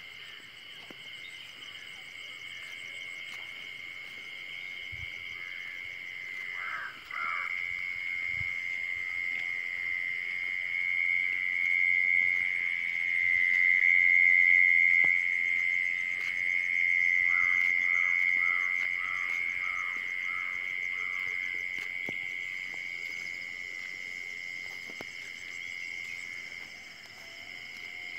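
A chorus of field insects calling from the rice paddy: one continuous high-pitched trill that swells to its loudest about halfway through and then eases. In the second half a short run of about five lower notes comes through.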